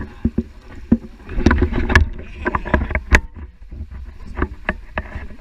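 Handling noise of an action camera carried by a walking hiker: irregular knocks and rubbing over a low rumble.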